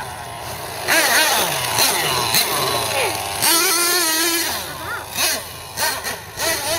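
Team Associated MGT 8.0 nitro RC monster truck's small glow-fuel engine revving up and down as the truck accelerates over dirt, rising sharply about a second in, holding a high wavering pitch for about a second midway, then a few short throttle blips near the end.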